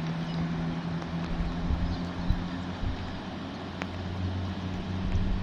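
An engine running steadily with a low hum whose pitch shifts slightly about halfway through, over a continuous noisy background.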